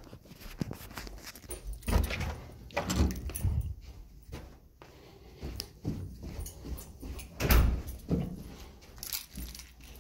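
Footsteps and thuds of someone walking down a carpeted stairwell while carrying a phone, with scattered light metallic jingling. The heaviest thud comes about seven and a half seconds in.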